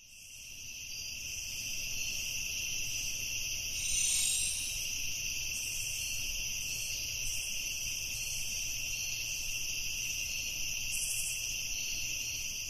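Steady, continuous high-pitched insect trilling that fades in at the start, over a faint low hum.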